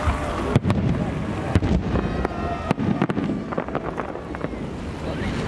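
Aerial firework shells bursting: about half a dozen sharp bangs, most of them in the first three seconds, with fainter ones after.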